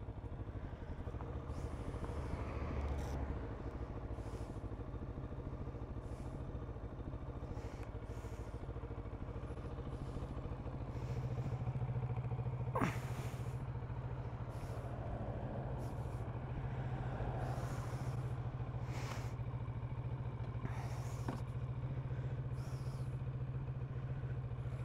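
Kawasaki Z650RS parallel-twin engine idling steadily while the bike stands still, the note growing a little stronger about eleven seconds in. There is a sharp click about a second later, and a few faint clicks.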